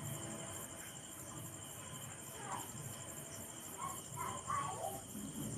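Crickets chirping steadily in a fast, even high pulse, with a few brief voice-like sounds from about halfway through.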